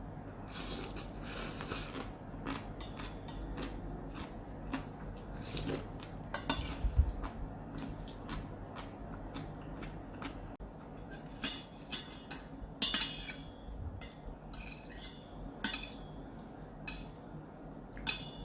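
Cutlery clinking and scraping against a bowl of ramen: scattered clicks throughout, with a run of louder clinks in the second half.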